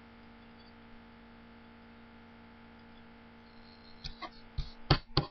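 Steady low electrical hum from the recording setup, then a short run of sharp clicks and knocks in the last second or so, the loudest about five seconds in.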